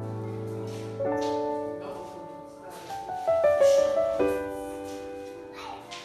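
Background piano music: soft, slow notes and chords struck every second or so.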